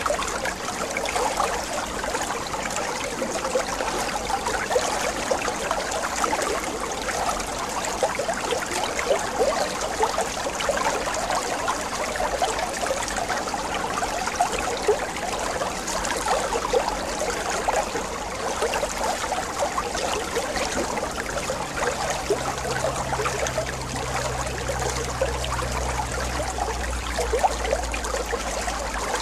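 Steady trickling and splashing of running water, with a low hum joining in for a few seconds about three-quarters of the way through.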